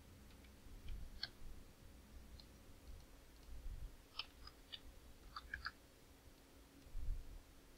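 Faint clicks of a computer mouse and keyboard keys as spreadsheet entries are made: one click about a second in and a quick cluster of clicks around four to six seconds in, then a soft low thump near the end.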